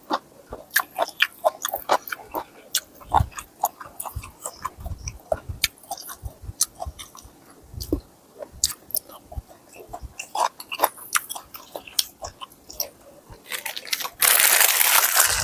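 A person biting and chewing crunchy raw vegetables, with many short, crisp crunches and mouth clicks. About a second before the end comes a louder, rough noisy burst.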